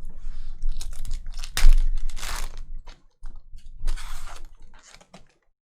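Foil trading-card pack wrapper torn open and crinkled, in several rough rustling bursts, loudest about two seconds in and again near four seconds.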